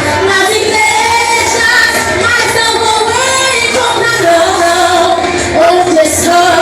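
A youth worship group singing a Pentecostal praise song, with sustained, gliding vocal lines over instrumental accompaniment.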